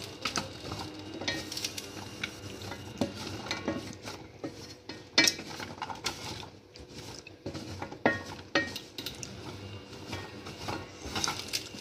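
Boiled peanuts in their shells being stirred with a wooden spatula in a stainless steel pan: an irregular rattle and scrape of shells against the metal, with scattered sharper knocks.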